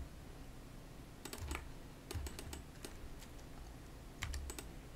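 Computer keyboard keys and mouse buttons clicking in a few short scattered clusters as modelling shortcuts are pressed.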